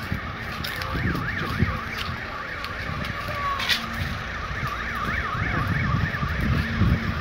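An electronic alarm siren warbling rapidly up and down, about four sweeps a second, over a steady low rumble.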